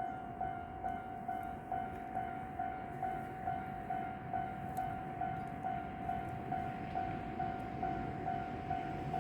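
Japanese railway level-crossing warning bell ringing, an electronic two-tone clang repeating evenly a little over twice a second, over a low steady rumble.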